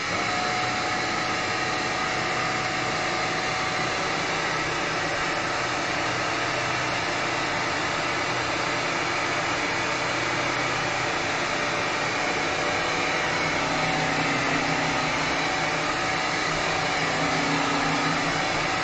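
Vax Glide cordless wet-and-dry hard-floor cleaner running steadily as it sucks spilled liquid up off the floor, its motor hum shifting slightly in pitch in the later part.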